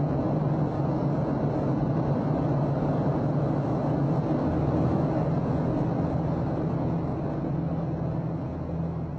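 Steady drone of a jet aircraft's engines, with a deeper hum joining about halfway through.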